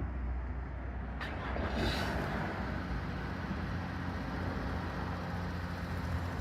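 A motor vehicle engine running with a steady low hum. A sharp click comes just over a second in, then a brief rush of noise swells and fades, as of a vehicle passing.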